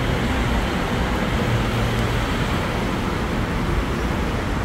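Steady outdoor city background noise: an even, unbroken rush, heaviest in the low end, with no distinct events.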